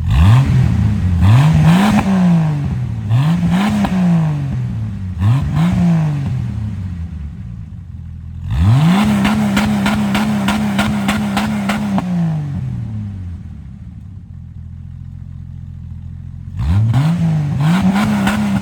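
Jeep engine revved through its freshly welded exhaust: three quick blips, then a rev held steady for about three seconds before it drops back to idle, and two more blips near the end.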